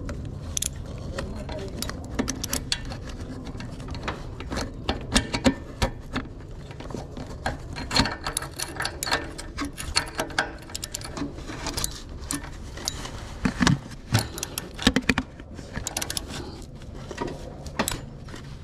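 Ratchet wrench clicking in irregular runs of quick ticks as a new upstream oxygen sensor is run down and tightened into the exhaust, over a low steady rumble.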